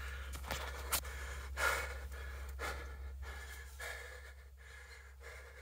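A man breathing hard and gasping right at the microphone, several breaths about a second apart, easing off near the end.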